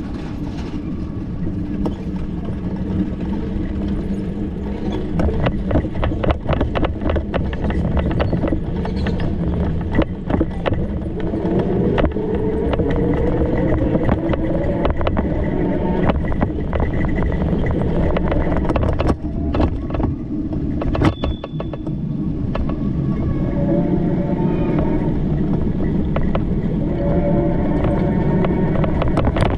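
Street traffic heard from a moving bicycle: a steady low rumble, a run of sharp rattling clicks in the first half, and motor-vehicle engines whose notes rise and fall as they pass, around the middle and again near the end.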